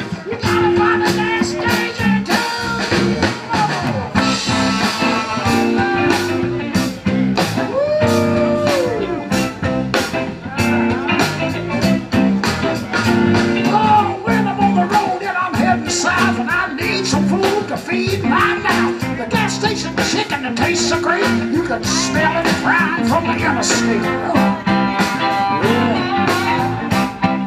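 Live blues band playing an instrumental stretch: electric guitar over bass and drums keeping a steady beat, with a bent note about eight seconds in.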